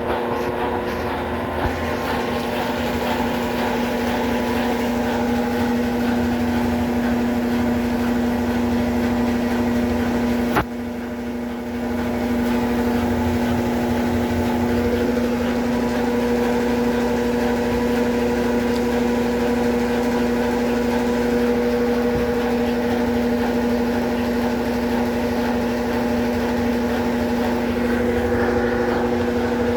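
Consul Facilite 11 kg (CWG11) top-load washing machine running through its rinse cycle: a steady motor hum. A click comes about ten seconds in, after which the machine is briefly quieter before the hum comes back.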